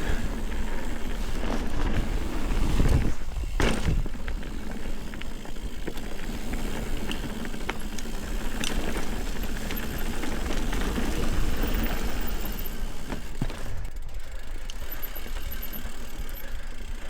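Ibis Ripley mountain bike descending a dirt trail: tyres rolling over dirt and rock with the chain and frame rattling, and scattered knocks from bumps.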